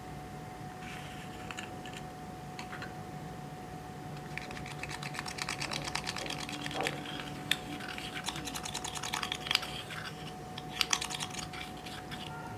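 Clear slime being kneaded and squished by hand, making rapid small clicks and pops. The clicking thickens about four seconds in and dies away near the end, over a faint steady hum.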